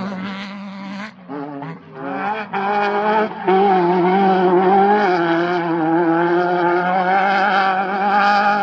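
Off-road race vehicle's engine at high revs, with brief lifts in the first two seconds, then loud and steady from about three and a half seconds in.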